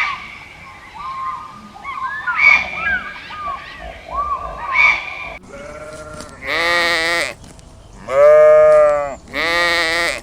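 Short, high chirping calls, then three loud, drawn-out bleats from a sheep, the middle one the longest and loudest.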